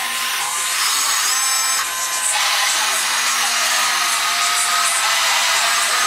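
Small electric motors and cable winches of a radio-controlled Doepke Unit model cable backhoe whining steadily as it dumps its bucket and swings the boom. The pitch of the whine shifts about two seconds in.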